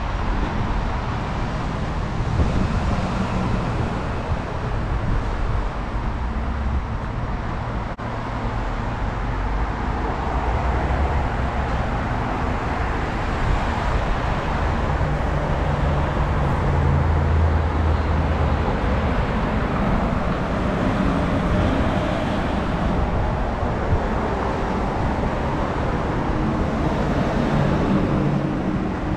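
Road traffic on a multi-lane road: a steady rumble of car engines and tyres that swells now and then as vehicles pass.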